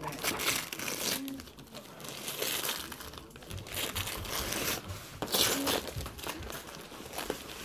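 Printed gift-wrapping paper being torn and crumpled by hand as a present is unwrapped, in several separate rustling bursts.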